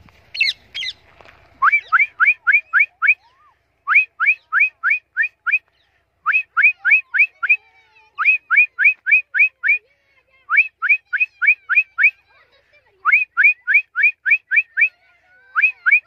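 A parrot flies off with a couple of brief squawks, followed by loud runs of quick rising whistles, about six a second in groups of five to seven with short pauses between: a person whistling to call free-flying ringneck parrots back.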